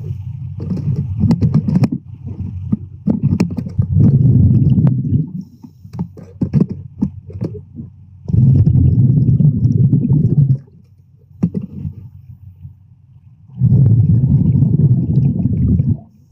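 Underwater recording of a diver's breathing: bursts of bubbling rumble about two seconds long, roughly every four to five seconds, with scattered sharp clicks in between.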